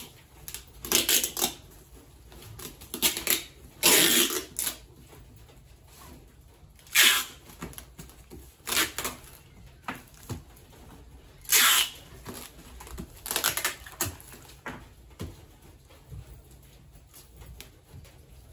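Card wrap being wrapped around a fragile ceramic item for posting: short, irregular bursts of papery rustling and scraping, busiest in the first two thirds and fainter near the end.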